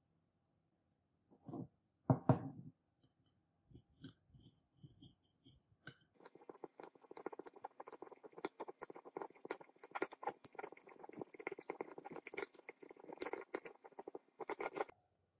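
A couple of dull knocks about two seconds in. Then a metal spatula stirs and scrapes potassium cyanide crystals in a glass beaker, a fast, gritty run of scraping and clinking against the glass that stops suddenly near the end.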